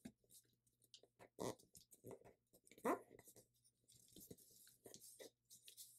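A thin sheet of paper being squash-folded and creased by hand: faint rustling and crinkling with scattered small clicks, the loudest about three seconds in.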